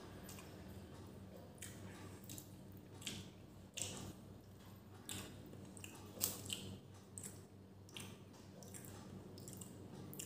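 Close-up eating sounds: fingers mixing and squishing vegetable pulao with beef curry on a steel plate, along with chewing. These come as short, irregular, faint sounds, the loudest about six seconds in.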